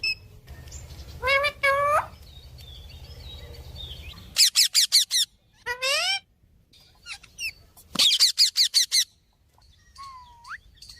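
Pet parrot calling: short rising squawks broken by two fast runs of high repeated chirps, and a single rising whistle near the end.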